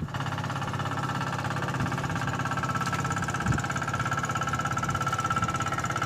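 A small boat's engine running steadily, with a fast, even pulse.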